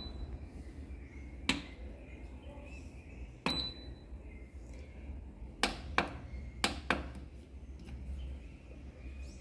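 Button presses on a Mondial bread machine's control panel: a series of sharp clicks, one followed by a short electronic beep about three and a half seconds in, over a low steady hum.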